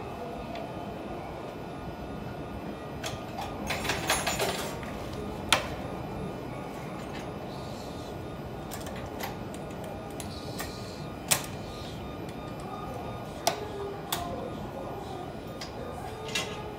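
Steady station hum with a series of sharp clicks and knocks from the gangway connection between two coupled Hanshin train cars being released for uncoupling: a quick rattling cluster about four seconds in, then single loud clicks about five and a half, eleven, thirteen and sixteen seconds in.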